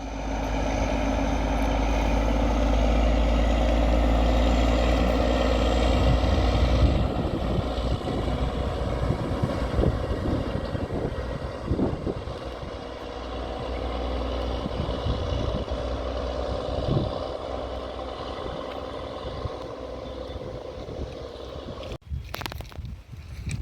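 Indian Railways train passing close by: a loud, steady rumble for about seven seconds, then a lighter run of wheel knocks and clatter as the rest of the train rolls past. It breaks off abruptly near the end.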